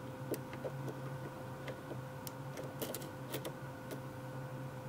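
Light, irregular metallic clicks and ticks of a lock pick working the pins of a custom-pinned 5-pin rim cylinder during single-pin picking, with a tension bar holding the plug, over a steady low hum.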